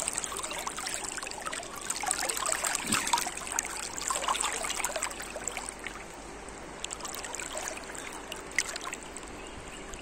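River water rippling and trickling over shallows, heard right at the water's surface; busier at first, a little quieter after about six seconds.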